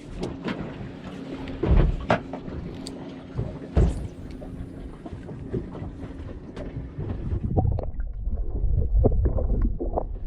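Wind rumbling on the microphone aboard a small boat, with a faint steady hum and two heavy knocks, about two and four seconds in; the rumble grows heavier near the end.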